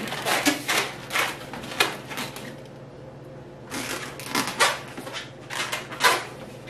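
Latex modelling balloons squeaking and rubbing in short irregular bursts as they are bent and twisted by hand, with a lull about halfway through.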